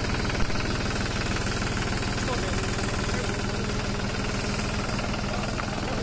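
New Holland farm tractor's diesel engine running steadily as the tractor drives slowly past, with one short knock about half a second in.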